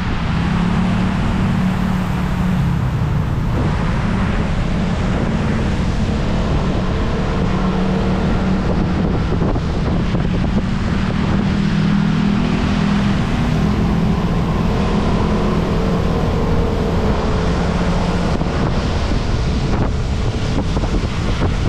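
Motor scooter riding on a wet road: wind buffeting the microphone over the engine's steady hum, whose note drifts up and down a little with speed, along with tyre noise on the wet surface.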